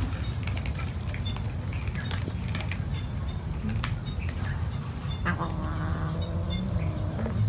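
A cat gives one long drawn-out meow of about two seconds, starting about five seconds in, over scattered soft clicks of cats crunching dry kibble.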